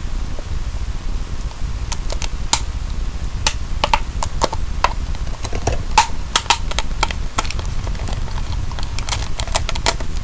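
A wrapper being pulled off by hand, crackling in scattered sharp clicks that come thicker about six seconds in, over a steady low hum.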